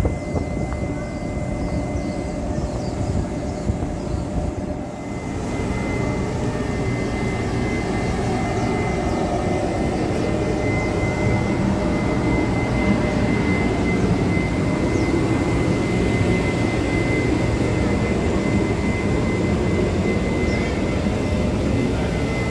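Diesel-hauled train running steadily with a loud, even engine rumble and a thin, steady high whine. It dips briefly about five seconds in, then comes back a little louder.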